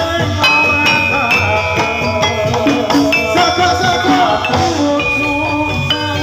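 Live music for a jathilan (kuda lumping) horse-trance dance: a gamelan-style ensemble of struck metal keys ringing over drumming, in a steady beat.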